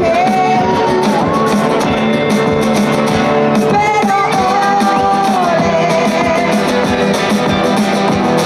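Live band playing, with a woman singing a melody over nylon-string acoustic guitar, electric guitar and a steady beat.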